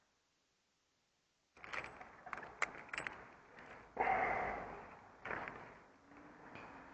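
Rustling of branches and foliage with sharp clicks and knocks, then a louder rustling swish about four seconds in that fades over a second.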